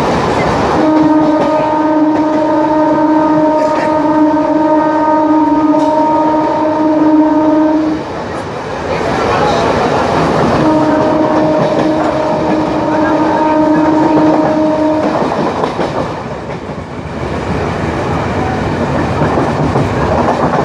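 Electric multiple-unit passenger train running at speed, its wheels clattering over the rail joints. A train horn sounds two long blasts at a steady pitch, the first about seven seconds long and the second, a couple of seconds later, about four seconds long.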